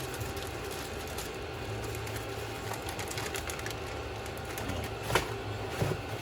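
Steady low background hum with light clicks, and one sharp click about five seconds in.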